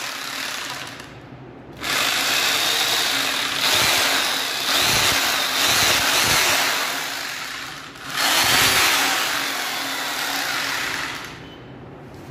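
Makita corded rotary hammer drill running free in bursts as the trigger is pulled and released: a short run that stops about a second in, a run of about six seconds, then another of about three seconds before it stops near the end. It is being test-run after a repair for a no-power fault, and it runs.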